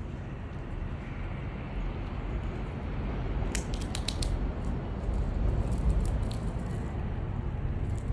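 Grey squirrel gnawing open a peanut shell, with a quick cluster of sharp crunching clicks about three and a half seconds in and fainter nibbling clicks later, over a steady low rumble.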